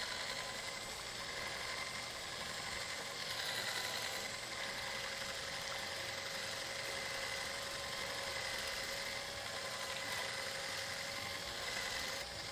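Small handheld electric mixer with a whisk attachment running steadily, a constant motor whine as it beats liquid cake batter in a glass bowl.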